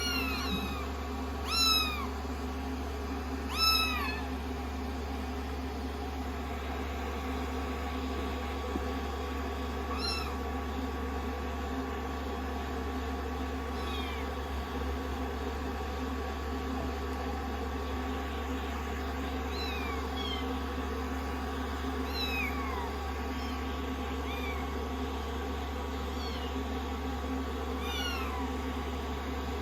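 Kittens mewing in short, high calls, about nine of them spread through, the loudest in the first few seconds. Under them runs the steady hum of a hair dryer.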